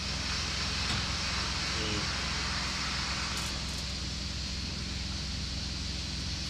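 Abrasive blasting going on in the background: a steady hiss over a steady low drone from a running machine. The hiss eases about halfway through.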